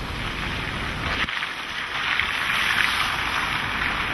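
Hurricane wind and rain, a steady rushing noise that grows louder about two seconds in.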